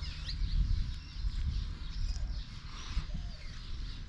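Small birds chirping in short calls, over an uneven low rumble.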